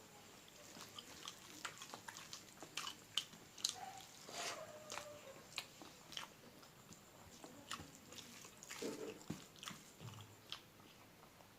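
Close-miked eating sounds of someone eating egg curry and dal: irregular wet chewing, lip smacks and mouth clicks.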